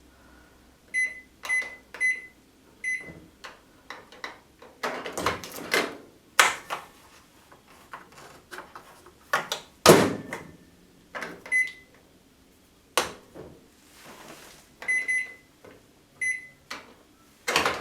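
Short electronic beeps from a Panasonic microwave oven's keypad, coming singly and in small groups, mixed with several sharp clicks and knocks, the loudest about halfway through.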